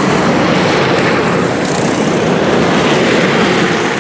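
Racing go-karts with small single-cylinder Predator engines running at speed, a steady loud drone.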